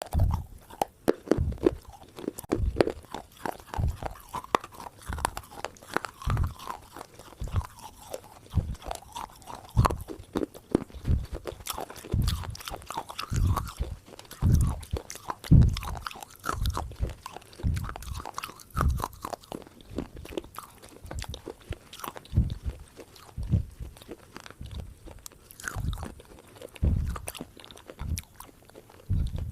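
A person biting and chewing crunchy food close to the microphone: a continuous series of irregular crunches, roughly one or two a second.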